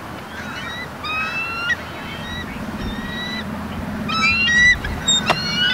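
Bald eagles calling: a series of short, high-pitched whistled notes, some dropping in pitch at the end, quickening into a rapid chatter about four seconds in. A sharp click near the end.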